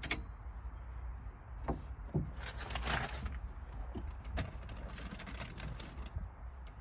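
Scattered clicks and knocks of hand tools and bolt hardware on the Jeep's roll-bar mounts, with a short rustling scrape about three seconds in.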